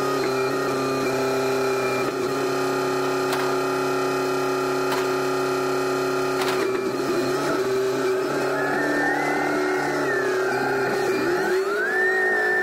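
SkyTrak telehandler's diesel engine running steadily with its hydraulics working as it lifts a load of steel beams, with a few faint clanks. Near the end a higher whine rises and falls and the engine note changes.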